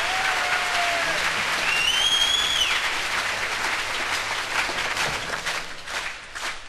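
Audience applauding with a couple of whistles gliding in pitch in the first three seconds, then the applause dies away near the end.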